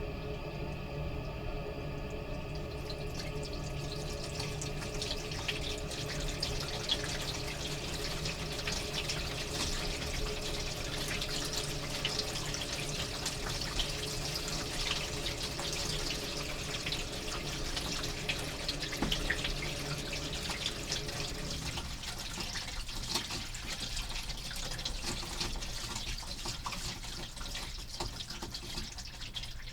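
Toilet refilling after a flush: water runs steadily into the tank and bowl, with a steady hum under it. About two-thirds of the way through the hum stops and the flow eases to a thinner trickle.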